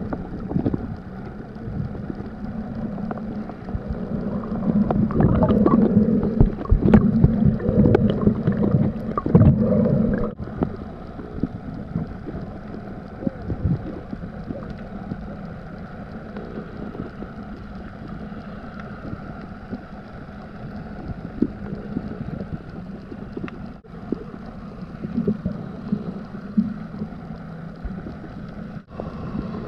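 Sea water sloshing and splashing over a low steady hum, louder and choppier for a stretch between about four and ten seconds in.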